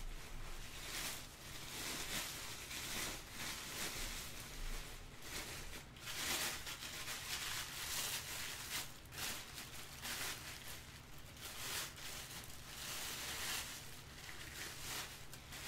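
Clear plastic wrapping bag crinkling and rustling in irregular bursts as a wrapped statue piece is handled and lifted out of its packing box.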